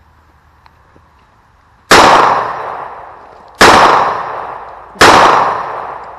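Three pistol shots, the first about two seconds in, then at intervals of about a second and a half, each a sudden loud report followed by a long echo that dies away.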